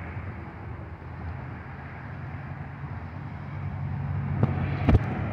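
Jet airliner engines rumbling as the plane climbs out toward overhead, the noise building steadily louder. Two sharp clicks near the end.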